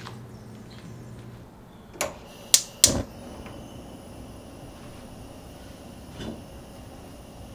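A gas stove burner being lit under an empty pan: three sharp clicks a little past two seconds in, then a faint steady hiss from the flame, with one more small knock near the end.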